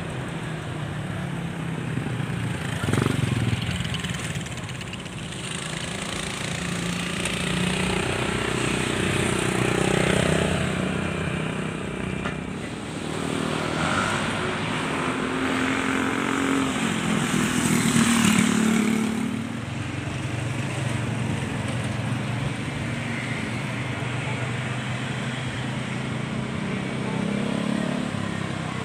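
Engine noise from passing motor vehicles, swelling and fading three times.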